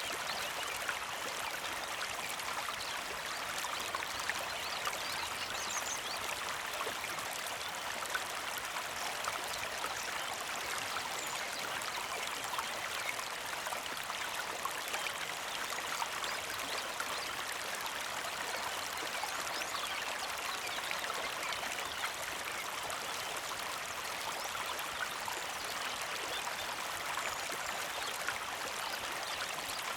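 Small mountain creek flowing and trickling steadily over stones, a continuous gentle babble of water.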